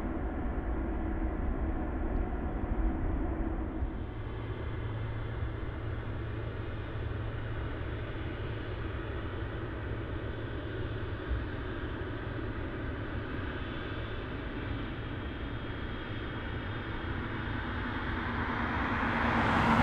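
Jet airliner engines running: a steady rumble and hiss with a faint high whine, swelling louder in the last couple of seconds.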